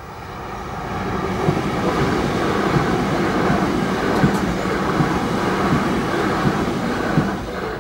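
Electric multiple-unit passenger train passing at speed over a level crossing: a steady rush of wheels on rail with repeated sharp clacks from the rail joints, a little under one a second. It builds over the first second and drops away sharply near the end as the train clears the crossing.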